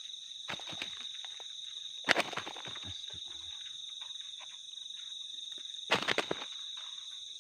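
A chorus of night insects chirring steadily in several high, unbroken trills. Short bursts of close rustling and knocking come about half a second in, around two seconds in (the loudest) and around six seconds in.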